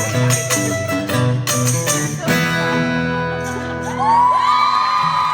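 Live band with guitars playing the last bars of a song, ending on a ringing final chord about two seconds in. About four seconds in, a single high voice rises and holds a long note as the audience starts to cheer.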